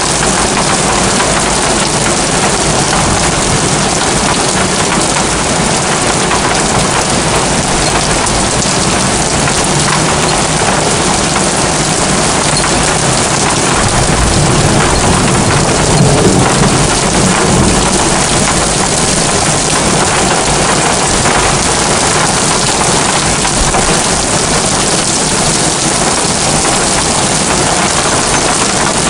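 Heavy rain pouring steadily onto a flat roof, with a low rumble of thunder swelling about halfway through.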